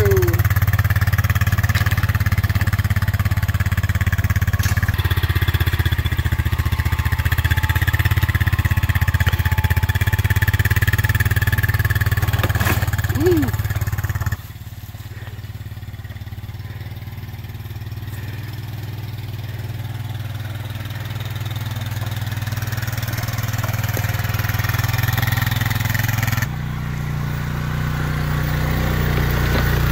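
ATV engine running steadily as it tows a loaded steel utility cart up a dirt trail. The sound drops suddenly about halfway through, then grows gradually louder as the ATV comes nearer, with another sudden shift near the end.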